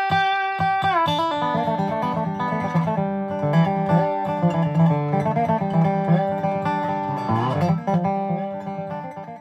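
Instrumental ending music on guitar: plucked notes with some sliding pitches, fading out near the end.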